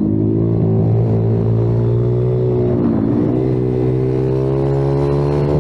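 Kayo TT 140 pit bike's 140cc four-stroke single-cylinder engine running hard on track, its pitch dipping briefly near the start and again about three seconds in as the revs drop and pick back up, otherwise holding a steady high note.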